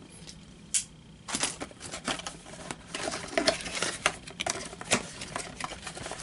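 Cardboard box of YJ speed-stacking cups being opened by hand: flaps pulled open and the box handled, making an irregular run of taps, scrapes and rustles. The taps come thickest in the second half.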